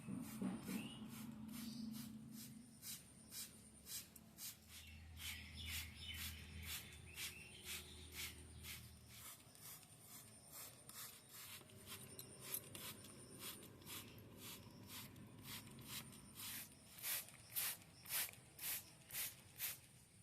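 Rhythmic rubbing or scrubbing strokes, about two a second, growing louder near the end.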